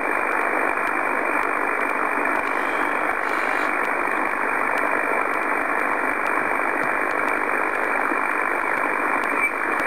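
Steady static hiss from an HF transceiver's speaker in upper-sideband mode on the 15-metre band: band noise between stations while the dial is tuned up the band.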